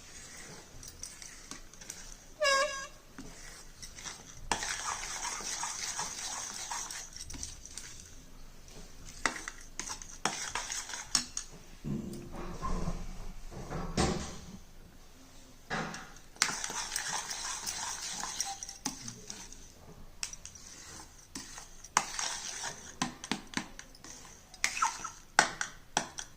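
Spatula scraping and stirring a thick banana-and-jaggery barfi mixture around a kadhai, in long scraping stretches with pauses and scattered clicks. A short high whine sounds about two and a half seconds in.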